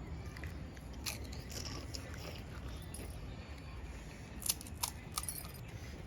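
Crisp panipuri shells crunching as they are bitten: a few sharp cracks, about a second in and again near the end, over a low steady hum.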